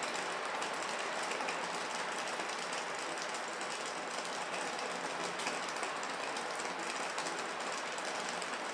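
Steady rain falling: a dense, even patter of drops.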